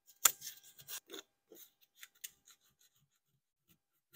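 220-grit sandpaper rubbed by hand along the wooden handle of a vintage Stanley sliding T-bevel: quick scratchy sanding strokes with the grain, the first one sharp and loudest. The strokes are busiest in the first second and thin out to faint ones by about three seconds in.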